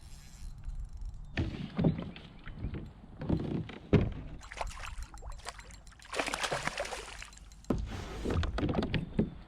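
Irregular knocks and thumps on a kayak's hull, with a short rushing burst around six seconds in.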